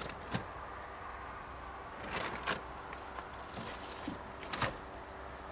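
Faint steady drone of a distant paramotor engine, with several short clicks and knocks on top. The loudest knocks come about two and a half and four and a half seconds in.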